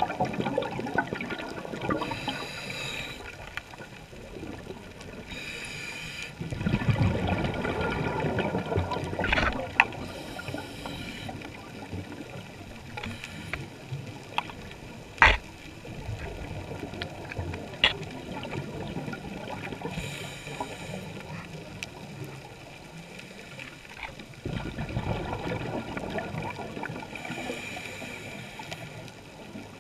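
Scuba diver breathing through a regulator underwater: a hiss on each inhale every several seconds and a rush of exhaled bubbles after some of them. A few sharp clicks cut through, the loudest about halfway through.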